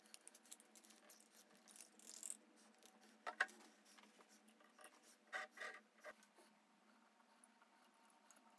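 Faint handling noises of a glass bottle with a wooden cross inside: light clicks and scrapes, a sharper knock about three and a half seconds in, and a few more clicks around five and a half seconds.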